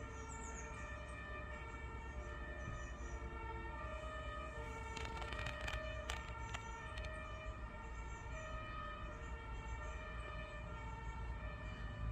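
Fire engine two-tone sirens sounding, each switching back and forth between a high and a low note about once a second, with more than one siren overlapping out of step over a low rumble.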